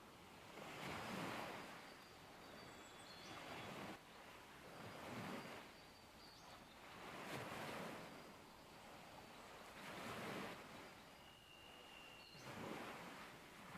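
Faint surf washing on a rocky shore, swelling and fading every two to three seconds, with a few faint, short bird whistles.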